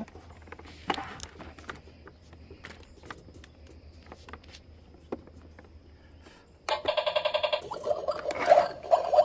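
Light plastic clicks and taps as toy kitchen parts are fitted together. About seven seconds in, a much louder trilling, bell-like electronic ring starts suddenly, followed by irregular pitched bursts.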